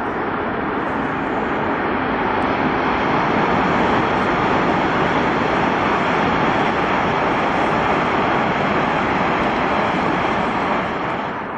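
High-speed electric trains running along a viaduct: a steady rushing noise that grows a little louder over the first few seconds, holds, and drops near the end.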